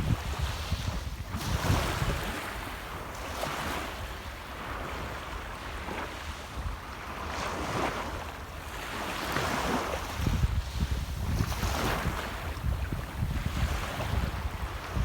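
Sea waves breaking and washing onto the shore in repeated surges every second or two, with wind rumbling on the microphone.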